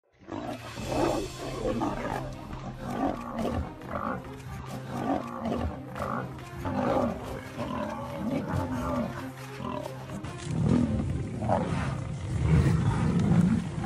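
Lions growling and snarling as they attack a Cape buffalo, over a steady low music drone. The drone stops about ten seconds in, and deeper, louder growls follow.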